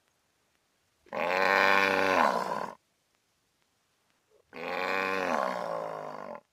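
Two long cow moos, one about a second in and one about four and a half seconds in, each falling in pitch as it ends.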